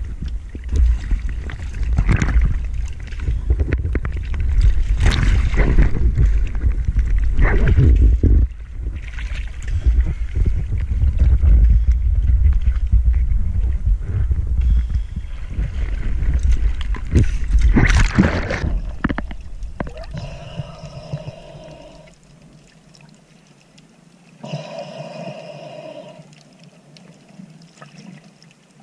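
Choppy sea water splashing and sloshing against a waterproof action camera held at the surface beside a dive float, loud, with many sharp splashes over a heavy low rumble. About twenty seconds in it drops to much quieter, muffled water sound as the camera goes under the surface.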